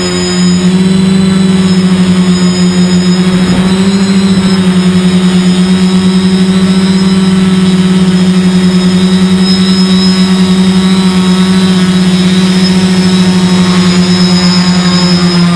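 Quadcopter's four brushless motors (Tiger Motor AT2216 1250kv) with 10x4.7 slow-fly props, humming steadily in flight. The hum pulses rapidly in loudness and steps up slightly less than a second in.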